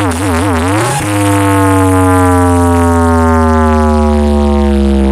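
Large sound system with ten subwoofers playing a sound-check track of electronic music. A synth tone wobbles up and down for about a second, then changes to one long synth tone over heavy bass that slides slowly down in pitch.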